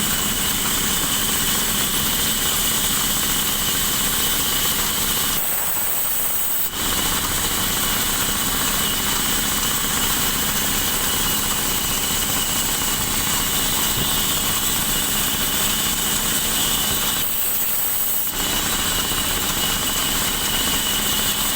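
Sawmill saw running steadily as it cuts through a big log, a dense continuous machine noise. It briefly thins out twice, for about a second each time.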